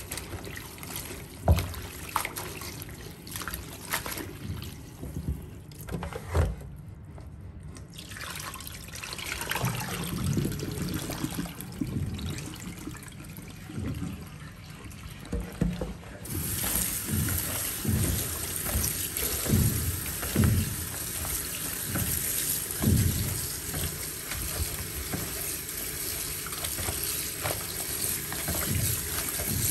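Tap water running into a plastic basin as leafy greens are swished and rinsed by hand, with splashing and occasional knocks. The running water grows louder and steadier about halfway through.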